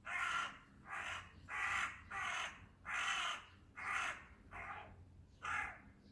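A crow cawing: eight short caws in a row, evenly paced at a little under one a second.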